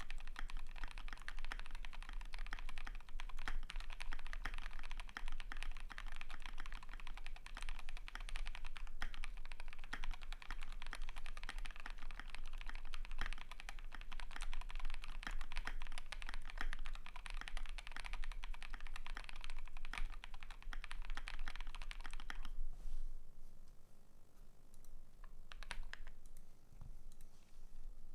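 Typing on a KBD75 v3.1 custom mechanical keyboard with lubed Gazzew Boba LT switches, a polycarbonate plate and Akko ASA-profile keycaps: a dense, continuous patter of keystrokes. About three-quarters of the way through it pauses for a few seconds with only scattered key presses, then resumes near the end.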